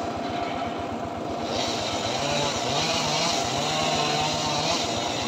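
Engine of a homemade circular-saw rig running steadily, the blade spinning free and not cutting. From about a second and a half in, a passing motorcycle adds a higher, wavering engine note and hiss.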